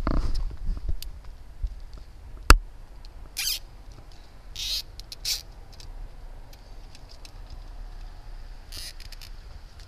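Hand tools working on a bicycle: one sharp click about two and a half seconds in, then a few short scrapes spread over the following seconds.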